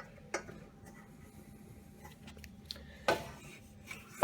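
A few light clicks and knocks with faint rubbing as a small wooden workpiece is handled, over a faint steady hum.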